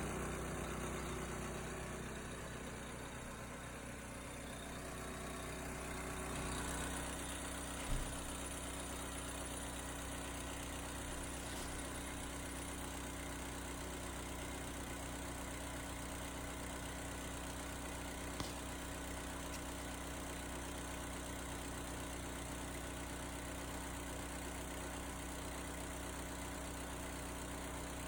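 Engine-driven 30-gallon service-truck air compressor running steadily, pumping up its tank. A single brief knock comes about eight seconds in.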